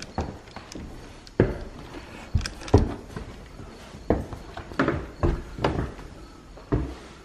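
Footsteps on bare wooden stair treads, a string of irregular thuds as someone climbs the stairs.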